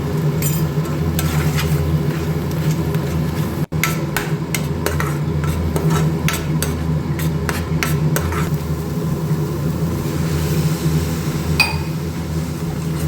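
A spoon stirring gravy in a pan, clinking and tapping against the pan in a quick run of knocks through the middle and a few more near the end, over a steady low hum.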